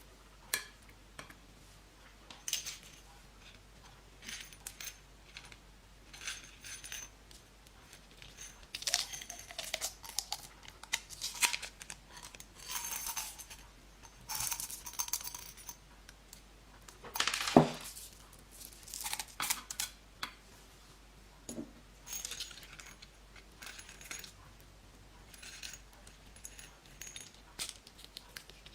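Slime being pressed, stretched and squished by hand, making irregular sticky clicks, pops and crackles with short pauses between them. One louder pop comes about two-thirds of the way through.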